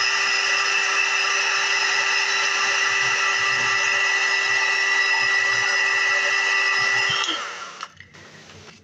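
Electric hot-air blower running steadily with a whine, used to soften the plastic of a model for bending. It is switched off about seven seconds in and winds down.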